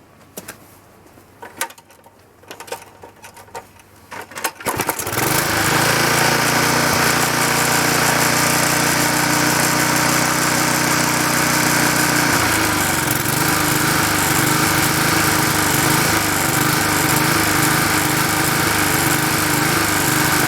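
Briggs & Stratton Quattro 40 lawnmower engine starting about five seconds in, after a few clicks and knocks, then running steadily; about twelve seconds in its note turns to a regular pulsing. It still runs poorly, rich and weak, which a new carburettor diaphragm has not cured.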